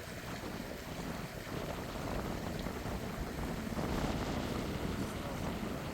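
Wind buffeting the microphone: a steady low rushing noise that swells a little in the middle.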